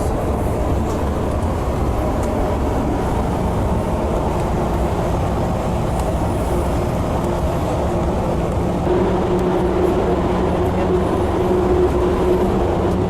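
Bus interior noise on the move: the engine and tyres give a steady rumble, with a steady hum that grows a little louder about nine seconds in.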